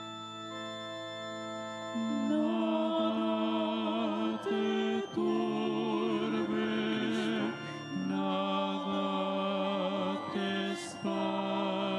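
Organ holding steady chords, joined about two seconds in by a voice singing a slow hymn melody with vibrato: music sung during communion.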